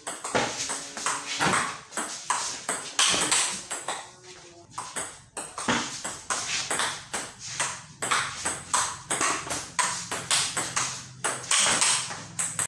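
Table tennis rally: the ball clicking off the paddles and bouncing on the table in quick succession, with a brief lull about four seconds in.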